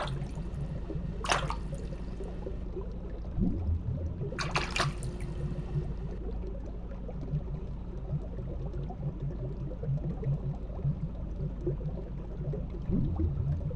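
Underwater ambience sound effect: a steady low bubbling and burbling of water, with two short, brighter water sounds about one and four and a half seconds in.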